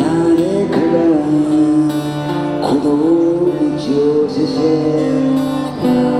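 A street busker singing and strumming an acoustic guitar, amplified through a small portable amplifier.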